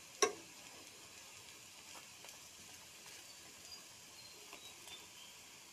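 Fritters frying in oil in a black wok, a steady faint sizzle. A metal spoon clinks sharply against the pan about a quarter second in, with a few light taps later as it nudges the fritters.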